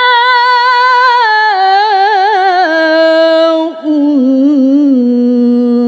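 A woman reciting the Quran in the melodic tilawah style, drawing out the vowel of "wa mā" as one long melismatic line. The line winds and steps downward in pitch, breaks briefly about two-thirds of the way through, then settles on a low held note.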